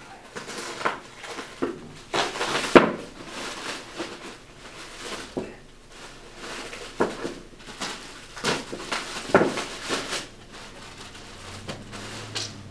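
Irregular rustling, scraping and knocking of things being handled and moved about, with one sharp knock about three seconds in.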